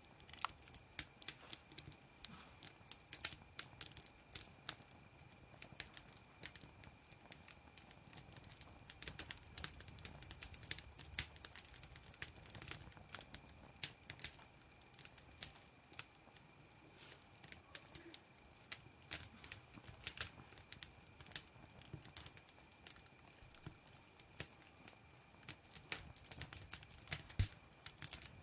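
Campfire of burning firewood crackling, with irregular sharp pops and snaps over a faint steady hiss.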